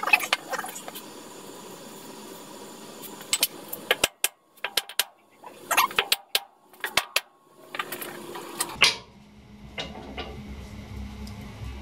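Hammer blows on the steel rear wheel of a Ford 2N tractor, partly through a wooden block held against the wheel disc to knock the wheel loose: irregular clusters of sharp knocks with a short ring. After about nine seconds the knocking stops and a faint low hum remains.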